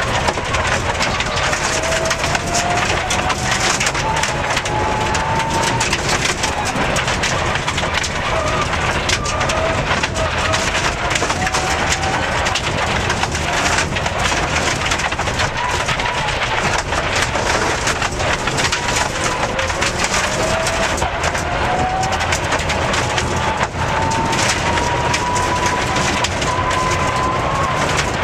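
Mitsubishi Lancer Evolution rally car at speed on a gravel forest stage, heard from inside the cabin. Its turbocharged four-cylinder engine climbs slowly in pitch on three long pulls, over a steady roar of tyres on loose gravel and a constant rattle of stones pinging against the underbody and wheel arches.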